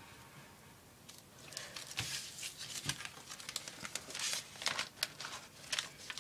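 Plastic bag crinkling and rustling as it is handled and cut with scissors. It comes as irregular crackles, starting about a second in.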